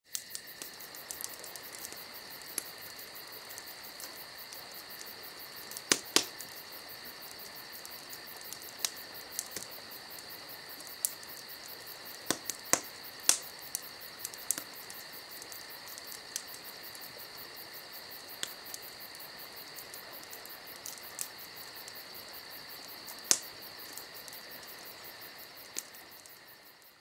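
Crickets chirping in a steady, unbroken chorus, with scattered sharp clicks; the chorus fades out near the end.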